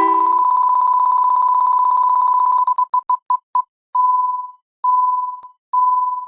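A synthesized electronic bell rings as a rapid, steady trill for nearly three seconds. It then breaks into separate dings that come further apart and ring longer, ending with three fading dings under a second apart.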